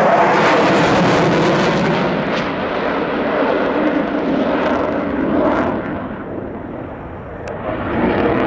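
A Eurofighter Typhoon's twin jet engines heard as the fighter flies past: loudest in the first two seconds, then fading as it draws away, and swelling again near the end.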